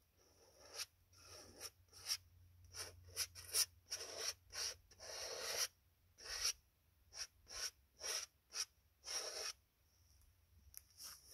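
Paintbrush scrubbing oil paint onto a large stretched canvas in a run of short, scratchy strokes, about one or two a second with a few longer ones. The strokes stop near the end.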